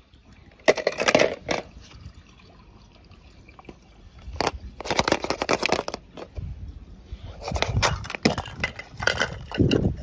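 Small rocks and gravel crunching and clattering as they are disturbed, in three spells of dense clicking: about a second in, around the middle, and near the end.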